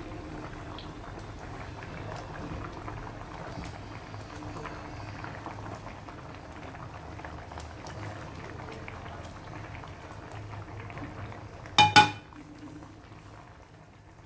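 Pot of Spanish mackerel curry with coconut milk bubbling at a simmer, with a steady low burble and small crackles. Near the end, two sharp, ringing metal clanks against the pot; the bubbling is quieter afterwards.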